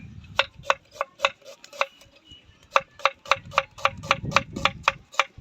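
Knife chopping onions on a cutting board: quick, even strokes, about three to four a second, with a brief pause around two seconds in.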